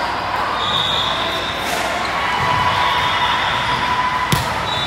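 Hubbub of a large, echoing sports hall during volleyball play, with balls thudding on the floor around the courts. About four seconds in comes a single sharp slap as a player's open hand strikes the volleyball on an overhand serve.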